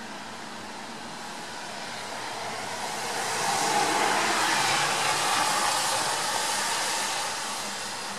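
A vehicle passing on a wet street, its tyre hiss swelling up about three seconds in and fading back near the end.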